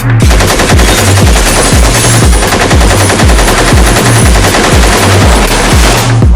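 Long continuous burst of automatic machine-gun fire sound effect, rapid shots with no break, laid over a synth track's steady pulsing bass beat; the gunfire stops abruptly near the end.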